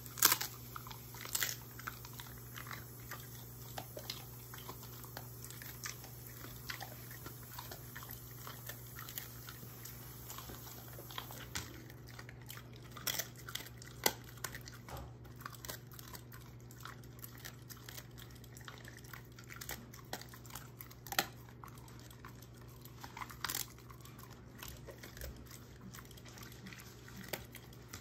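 German shorthaired pointer chewing dried dog treats: scattered crunches and clicks with pauses between them.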